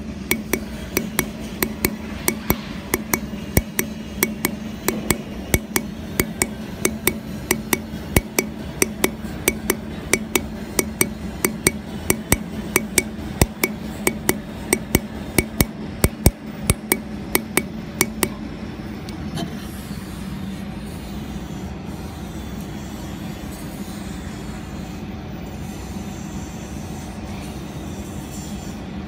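Handheld pulsed laser welder firing along a steel joint, each pulse a sharp snap, about three a second, over a steady low hum. The snaps stop about two-thirds of the way through, leaving only the hum.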